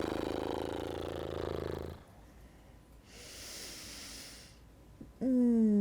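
A woman fluttering her lips in a rapid buzzing exhale for about two seconds, then a soft breathy exhale. Near the end comes a voiced sigh that slides down in pitch.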